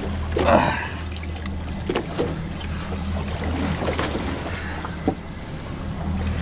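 Boat engine running with a steady low hum. There is a short rushing burst about half a second in, and a few sharp clicks or knocks from the rod and reel being worked.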